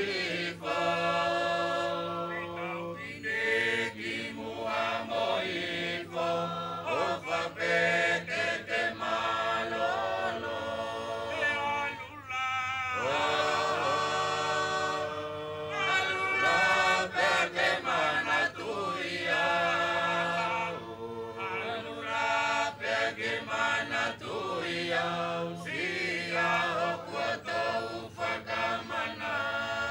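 A large chorus singing a traditional Polynesian group-dance song together, with long held notes and sharp beats keeping the rhythm.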